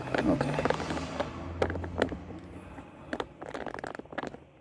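Ratchet of a click torque wrench tightening a sway bar end link nut: a quick run of metal clicks and scraping, then a few separate sharp clicks.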